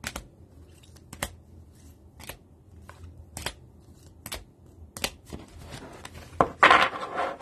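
Trading cards in rigid plastic toploaders being flipped one at a time, each move giving a sharp plastic click, about six clicks roughly a second apart. Near the end comes a louder rustle and clatter of plastic as the stack of toploaders is gathered and squared on the table.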